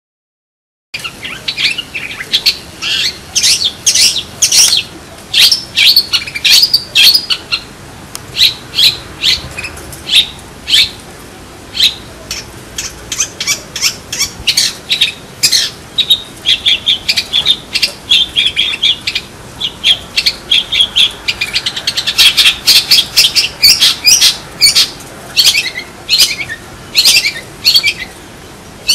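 Long-tailed shrike (cendet) singing: a fast, unbroken run of short, sharp high notes that starts about a second in and grows busier near the end.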